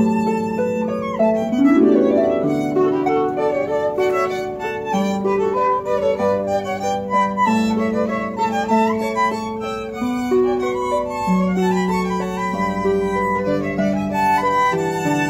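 Two violins and a concert harp playing together, the violins bowing sustained melody notes over the harp's plucked accompaniment, with a quick upward slide in pitch about two seconds in.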